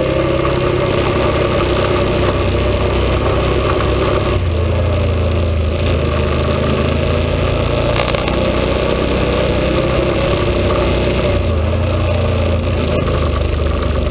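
Can-Am ATV engine running steadily under way, heard close up from the handlebars, its pitch rising and falling with the throttle.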